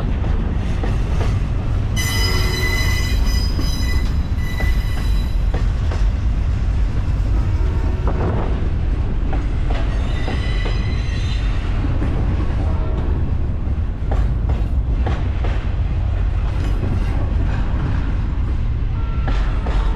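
A train rolling past: a steady low rumble of wheels on rails, with high metallic wheel squeal about two seconds in and again around ten seconds, and sharp clacks over rail joints in the second half.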